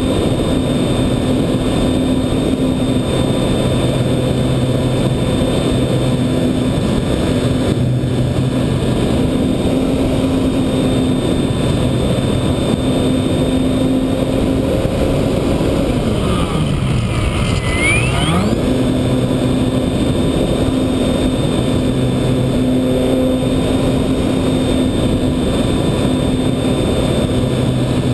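Electric motor and propeller of a Radian RC glider heard from onboard in flight: a steady drone with wind rushing over the microphone. About fifteen seconds in, the motor's pitch sweeps down as it slows, then climbs back to full speed over about three seconds.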